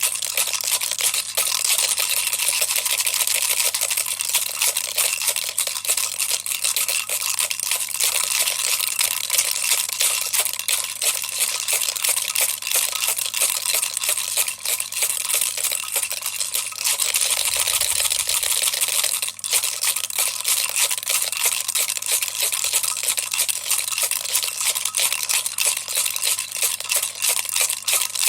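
Baby toy rattle shaken continuously, a dense, steady rattling of many quick clicks.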